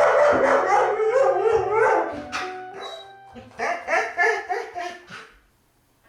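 A dog whining and yelping in rapid high-pitched bursts, in two runs with a short break between them, going quiet near the end.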